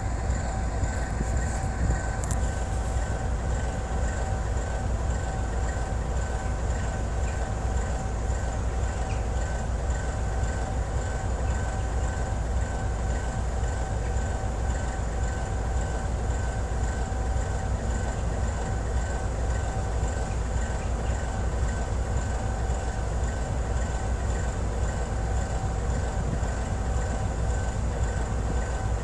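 Diesel engine of a PKP class 311D locomotive running steadily: a constant deep rumble with a steady whine over it, unchanging in speed throughout.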